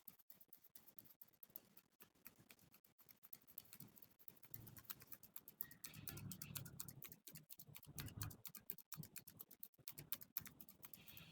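Fingers massaging a head, rubbing and scratching through hair and scalp: a faint, dense run of quick soft crackles and taps.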